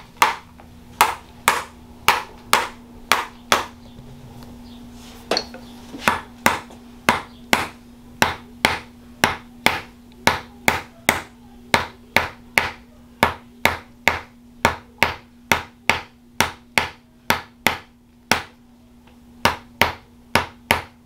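Handheld chiropractic adjusting instrument tapping: a long, even series of sharp clicks about twice a second, with a short break about four seconds in and another near the end.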